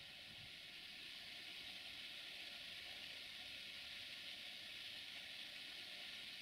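Faint, steady background hiss, with no distinct engine or rail sound standing out.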